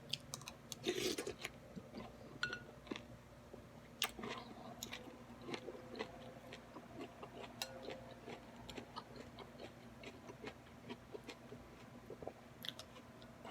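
Close-up chewing: a steady run of small wet mouth clicks and smacks from someone eating a bowl of pho, with a louder, noisier mouthful about a second in. A faint steady hum runs beneath.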